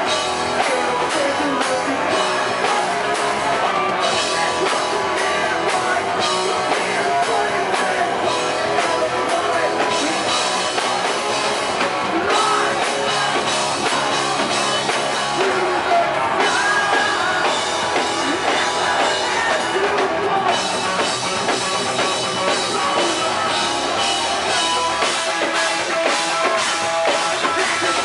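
Live rock band playing at full volume, with drum kit, electric guitars and a singer.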